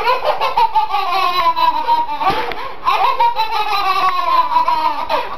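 Babies belly-laughing in two long fits of rapid pulsing laughs, each about two seconds long with the pitch sliding slowly down, split by a short pause a little over two seconds in.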